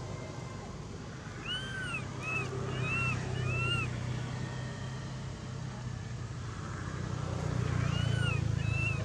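A low engine hum that swells twice, with short, high, arched calls in two runs: four starting about a second and a half in, and two more near the end.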